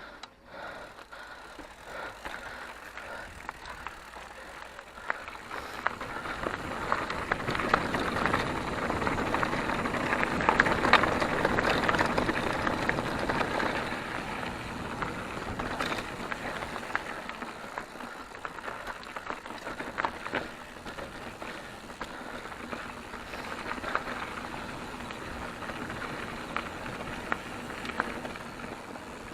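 Mountain bike riding over a rough dirt trail: tyres crunching on ground and stones, with constant small rattles and knocks from the bike. It gets louder about six seconds in and eases off again after about fourteen seconds.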